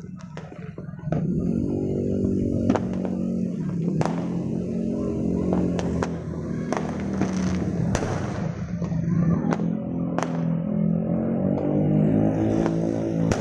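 Distant fireworks cracking and banging at irregular intervals, over a dozen sharp reports, over a steady low drone that comes in about a second in.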